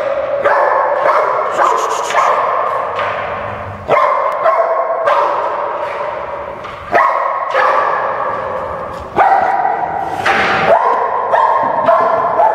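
Dogs barking repeatedly and rapidly, the barks running together and ringing on in a bare, echoing room.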